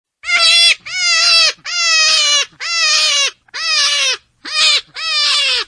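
An animal crying out over and over: about seven loud, evenly repeated calls, each about half a second long and dropping slightly in pitch at its end.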